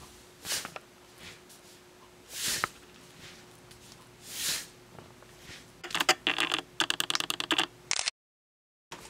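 Cat wand toy swished through the air over a wooden floor: three soft whooshes about two seconds apart. About six seconds in comes a quick run of light clicking and rattling, and the sound then drops out for under a second.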